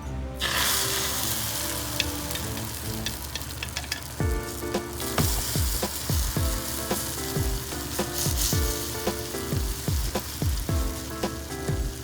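Food frying in hot oil: a steady sizzle with scattered crackling pops, starting suddenly about half a second in, as if something has just gone into the pan.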